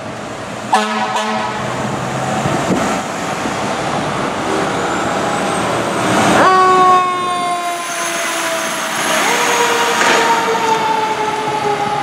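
Pierce Velocity fire engine responding: a short horn blast about a second in, then its siren climbs fast near six seconds and sinks slowly in pitch, climbing again about nine seconds in and falling slowly once more, over traffic noise.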